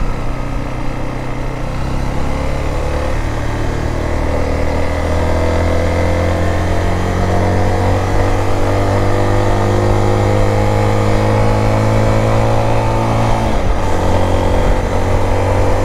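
Zontes T350X motorcycle's single-cylinder engine pulling under sustained acceleration on a top-speed run, its pitch climbing slowly and steadily, with a brief drop about three-quarters of the way through before it carries on.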